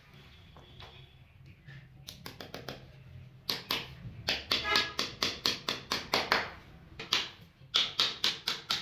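Small wooden-handled hammer tapping nails through a PVC trim strip into the wall. It makes a run of quick, sharp taps, about four a second, faint at first and much louder from about three and a half seconds in.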